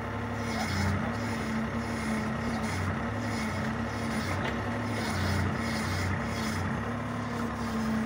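Orteco 1000 FEX pile driver's engine idling: a steady low hum that wavers slightly in a regular rhythm.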